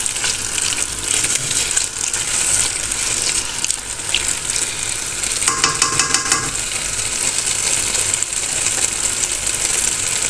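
Potato and eggplant curry sizzling steadily in a steel pan while a wooden spoon stirs and scrapes through it, the yogurt just mixed into the masala. There is a brief rapid rattle a little past halfway.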